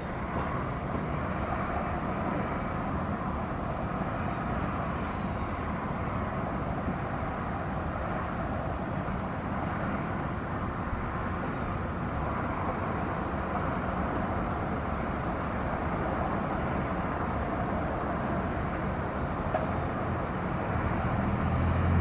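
Steady outdoor rumble of distant traffic, an even hum with no distinct events. Near the end a nearer engine's low drone comes in and gets a little louder.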